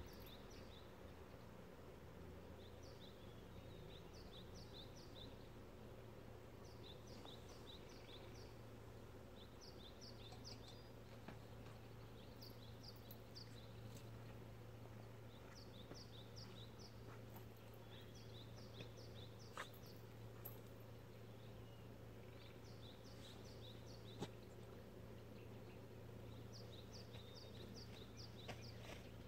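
Faint outdoor country ambience: a steady low hum under short high chirps that come in quick runs of three to five, repeating every couple of seconds, with a few faint clicks.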